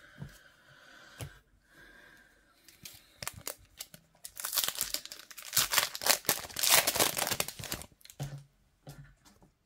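A Topps trading card pack's foil wrapper being torn open and crinkled by hand. The crinkling starts about three seconds in, is loudest in the middle and stops about eight seconds in, followed by a few soft knocks of the cards being handled.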